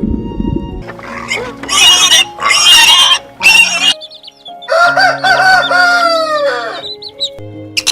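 Pig grunting, then three shrill squeals, followed by a rooster's single long crow that drops in pitch at the end, over background music.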